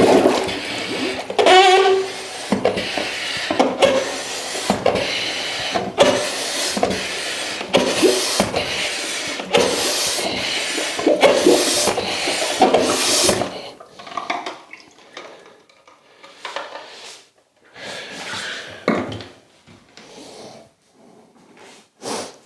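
Water churning, splashing and gurgling in a clogged toilet bowl as hot water is pumped from a plastic bottle into the drain, with many quick irregular splashes. About thirteen seconds in it stops, leaving only scattered quieter splashes and handling sounds.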